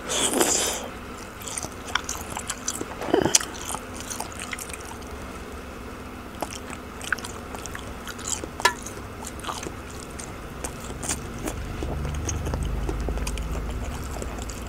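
Close-miked chewing of a bakso meatball: a bite as it goes into the mouth, then scattered small mouth clicks and smacks while chewing.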